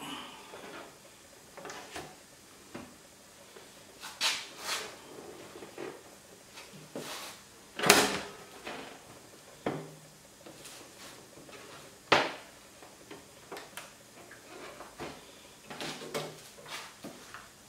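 Motorcycle fuel tank being lowered and worked into place by hand on a Kawasaki Ninja 1000SX: scattered knocks, clunks and rustles, the loudest knock about eight seconds in and another sharp one near twelve seconds.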